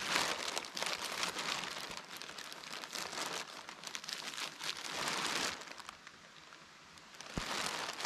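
Black plastic garbage bag crinkling and rustling close up as it is pulled and pressed into a hood over the head. The crinkling dies down briefly about three-quarters of the way through, then starts again near the end.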